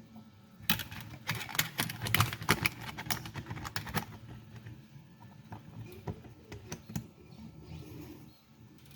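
Quick run of light hard clicks and taps, like plastic pieces and tools being handled, lasting about three seconds from near the start. A few scattered clicks follow a little later.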